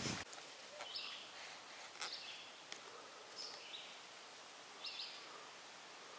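Faint songbird chirps: a handful of short, high notes spaced a second or so apart over quiet woodland background.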